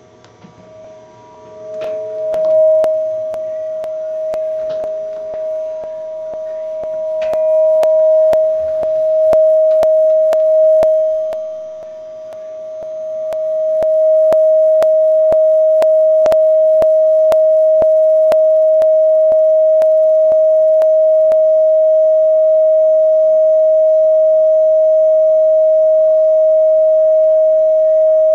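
Audio feedback howl: a camcorder's microphone picking up its own sound from the TV speaker it is wired to, making a single pitched tone. The tone builds up over the first couple of seconds, swells and dips, then locks into a steady, loud note about halfway through, with scattered faint clicks.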